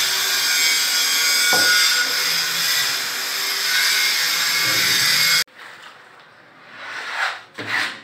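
A power tool running steadily nearby, a loud even whirring that cuts off abruptly about five and a half seconds in. Then quieter handling sounds, with two short louder noises near the end.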